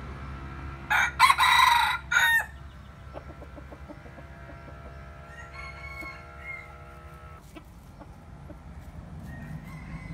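A crossbred junglefowl rooster crowing once, about a second in: a loud crow in a few quick parts, about a second and a half long.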